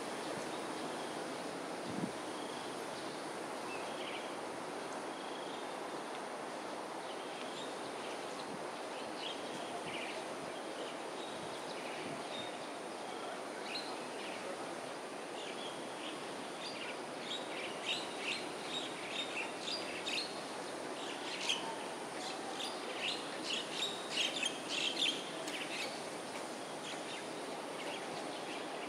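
Steady outdoor background noise, with a flurry of short, high chirping calls building up in the second half.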